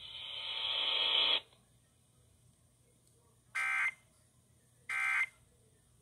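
Midland NOAA weather radio's speaker: a hiss that grows louder and cuts off about a second and a half in, then, after near silence, two short buzzy data bursts about a second and a half apart, the SAME end-of-message code that closes a severe thunderstorm warning broadcast.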